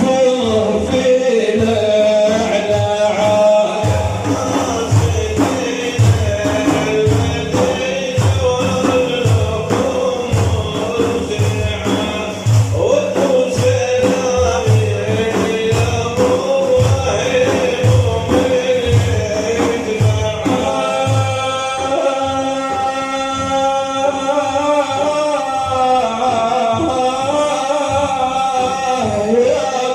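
Male voices chanting a religious praise song (manqaba) over frame drums beating a steady rhythm; about two-thirds of the way through the singing moves to longer held notes.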